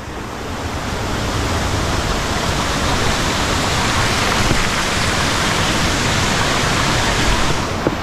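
Steady rush of water from a small waterfall cascading over rocks into a stream, growing a little louder in the first second.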